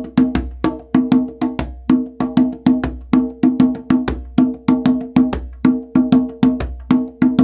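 Conga drum played by hand in a steady, driving rhythm of about four strokes a second, each stroke ringing with a clear drum pitch.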